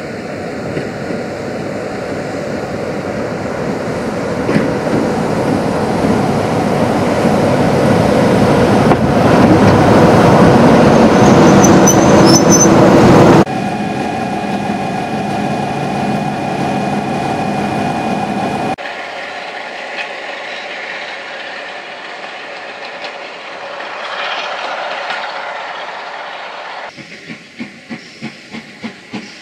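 Class 45 'Peak' diesel locomotives: first one growing steadily louder as it works a train, then a cut to one standing with its engine running steadily. Near the end, a steam locomotive chuffing at about two beats a second with escaping steam.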